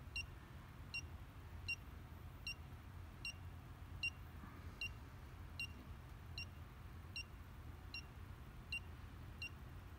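Southwire 41210S circuit breaker finder receiver beeping as it is swept across breakers: short high beeps at a steady, unhurried rate of a little over one a second, over a low steady hum. The beeps quicken near the breaker carrying the transmitter's signal, so this slow rate marks breakers off the traced circuit.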